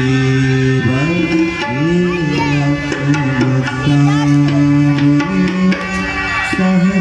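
Devotional bhajan music: a harmonium sounds held notes while a man sings gliding melodic phrases, with tabla strokes throughout.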